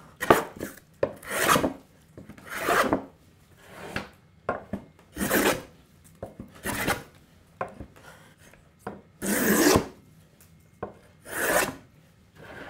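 Scrub plane taking heavy cuts across a wooden board: about nine rasping strokes, one every second or so, with light knocks between them. The strokes are taking down high spots to flatten the board.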